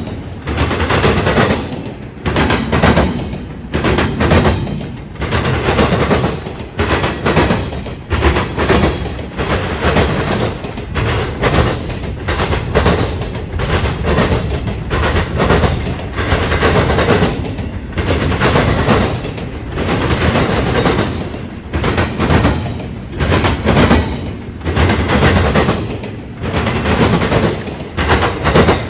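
Norfolk Southern intermodal train's wheels slamming over a railroad diamond crossing at speed: a loud, unbroken run of clattering bangs, one about every second or so as each truck hits the crossing.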